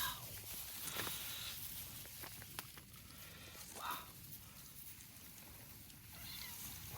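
Chickens giving a few short, scattered calls over a faint outdoor hiss.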